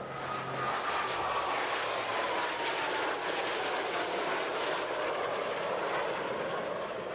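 Four F/A-18 Hornet jets flying past. The jet noise swells in the first second and then holds steady, with a whine that slides steadily down in pitch as they go by.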